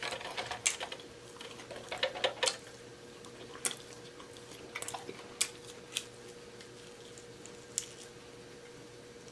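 Close-miked eating sounds from chewing chicken wings off the bone: irregular sharp clicks and wet smacks, busier in the first couple of seconds and sparser after.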